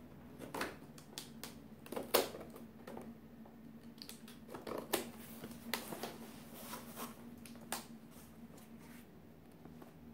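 Cardboard laptop box being handled and opened: irregular clicks, scrapes and rustles of cardboard and packaging, the loudest about two seconds in.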